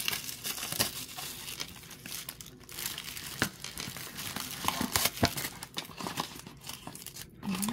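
Paper and plastic packaging handled and crinkled by hand, with many irregular sharp crackles and clicks as it is opened.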